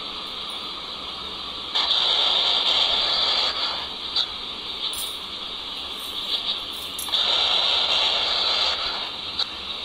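Hedgehog hissing: two long hisses of about two seconds each, one a couple of seconds in and one near the end, with fainter hissing and a few small clicks between.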